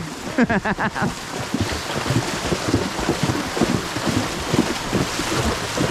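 Horse wading through a flooded river, water splashing and sloshing around its legs in an irregular run of splashes, over a steady rush of water and wind on the microphone.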